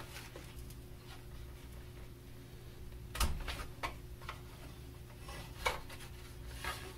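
Handling noise of cables and plastic connectors being worked loose inside a Macintosh SE/30's metal chassis: rubbing and scraping with a few sharp clicks and knocks, the loudest about three seconds in, over a steady low hum.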